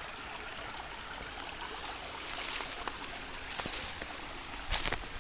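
Running water gushing and splashing: a steady rush with sharper splashes about halfway through, the loudest one near the end.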